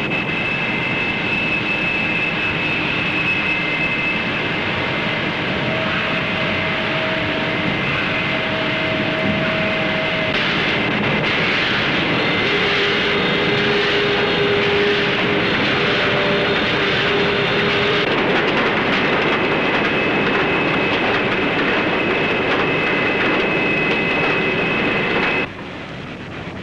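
Colliery pit-cage winding machinery running: a loud, steady mechanical din with several high, steady whining tones that come and go, dropping suddenly near the end.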